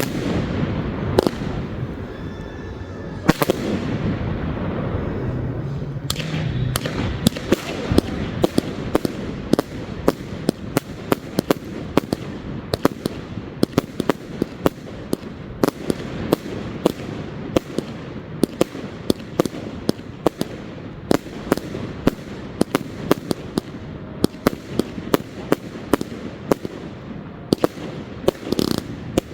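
Fireworks going off: a few separate bangs, then from about six seconds in a rapid, dense run of sharp reports, several a second.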